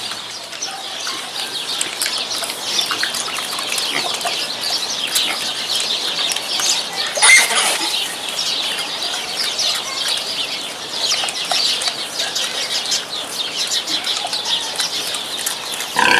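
Many small birds chirping and twittering continuously, with one brief louder sound about seven seconds in.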